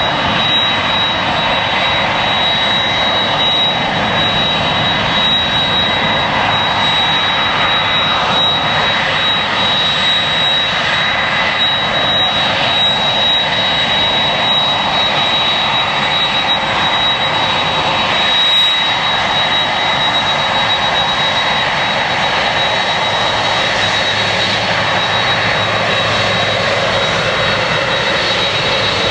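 Boeing 767-300's twin turbofan jet engines running at low power as the airliner taxis slowly past: a steady rushing noise with a high whine held on one note.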